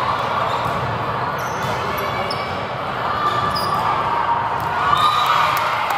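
Indoor volleyball rally: a volleyball being struck sharply several times over a steady murmur of players and spectators, with the chatter swelling near the end.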